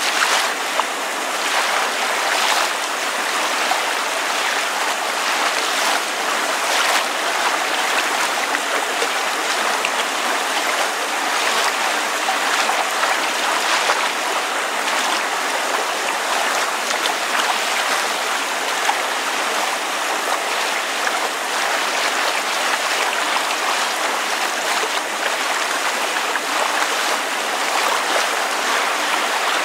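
Water lapping against a surface while rain falls: an even, unbroken wash of water noise with many small splashes.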